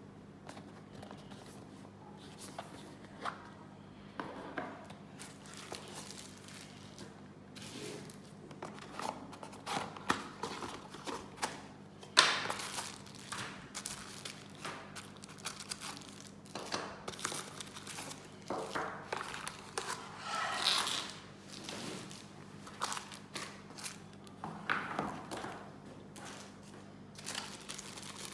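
Plastic bags and a foam wrapping sheet being handled and unwrapped, with irregular crinkling and rustling in short bursts and a sharp knock of the box about twelve seconds in.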